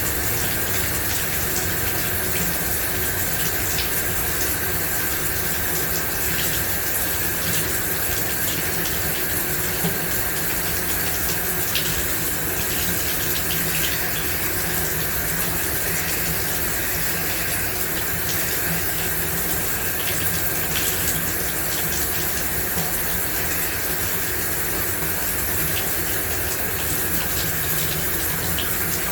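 Shower running: a steady rush of spraying water, with faint scattered droplet ticks.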